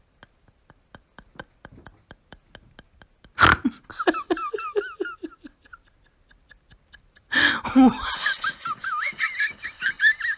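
Light rapid clicking, about six a second, then a sudden thump about three seconds in, followed by a person laughing in bursts; a second, higher bout of laughter comes near the end.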